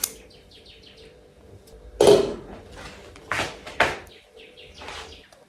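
Small birds chirping in the background, with a few short noisy bursts about two to four seconds in.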